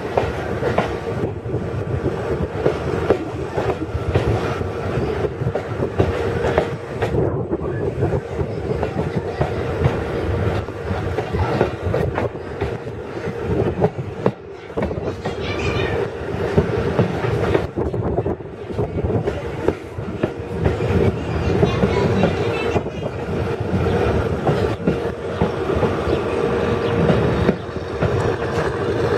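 Railway carriage running along the track, heard from inside the coach: a steady rumble with a constant hum, and the wheels clicking over the rail joints.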